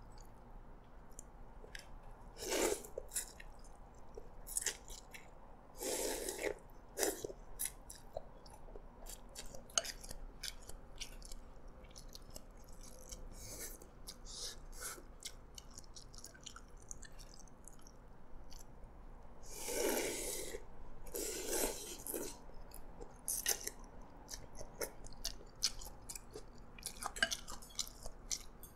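A person eating Hokkien prawn mee, yellow noodles in prawn broth: wet chewing and small mouth clicks throughout, with several louder slurps of noodles, two of them close together a little past the middle.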